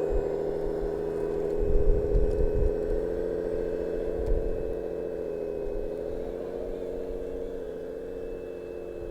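Radio-controlled construction model's electric motor running with a steady hum. A few low bumps come about two seconds in.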